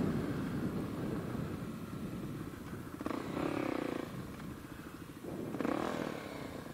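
Kawasaki KLX300 dirt bike's single-cylinder four-stroke engine running through a new Delkevic carbon slip-on exhaust while riding, the revs rising twice, about three and five and a half seconds in.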